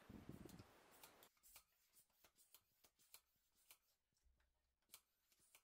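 Near silence with faint, scattered soft clicks: a chocolate writer tube being squeezed while its nozzle touches a ceramic plate as letters are piped.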